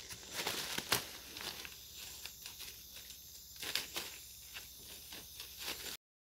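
Faint rustling and crackling of dry leaf litter and undergrowth as someone moves through it, with scattered light snaps, one sharper about a second in. Cuts off just before the end.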